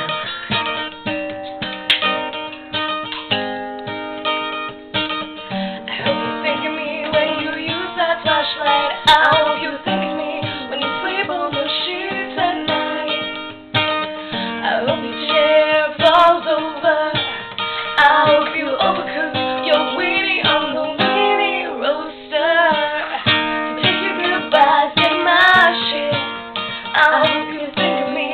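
Acoustic guitar strummed, with a woman's singing voice joining after several seconds of guitar alone.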